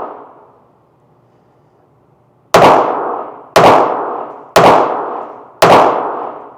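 Ruger Mark IV .22 LR pistol firing four shots about a second apart, each followed by an echoing tail. The tail of an earlier shot fades out at the start.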